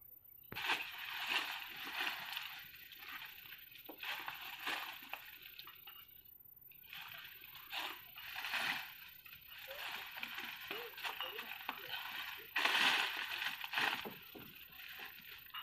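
Dry leaves and leafy plant stems rustling and crackling as they are pulled out of the undergrowth and handled, in irregular spells with sharp snaps, loudest near the end.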